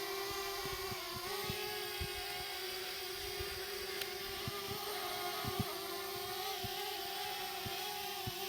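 DJI Mavic Mini drone in flight, its propellers giving a steady whine that holds at one pitch with only slight wavers.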